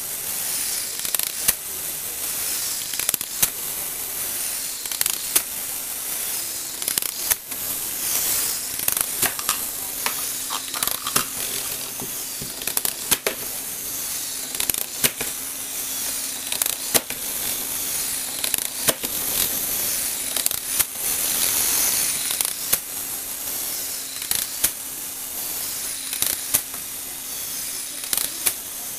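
Motorised Lego Technic jumping mechanism running: a steady whir of the electric motor and plastic gears, with a sharp plastic clack about every two seconds as the spring-loaded legs cycle. A faint low hum joins from about seven seconds in.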